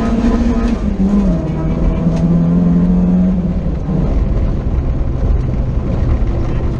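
BMW E30 rally car's engine heard from inside the cabin, running hard over steady road and wind noise. Its note falls about a second in and drops again to a lower, steady pitch about four seconds in as the car eases off.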